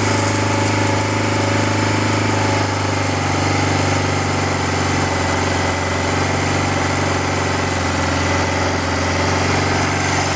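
The single-cylinder Rotax engine of a 1994 BMW F650 Funduro idling steadily on its first run after a restoration, with a slight settling of its note about three seconds in.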